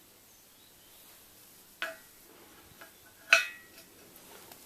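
Machined steel pivot bosses being set down on steel: two sharp metallic clinks about a second and a half apart, the second ringing briefly, among a few lighter taps.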